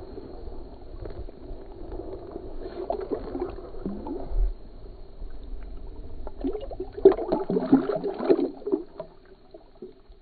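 Water sloshing and splashing in an ice-fishing hole as a bass is released by hand, with many small splashes. A louder spell of splashing about seven seconds in dies away near the end.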